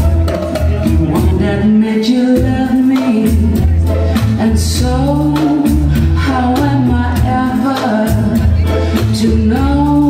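Latin-American dance music with singing over a steady percussion beat.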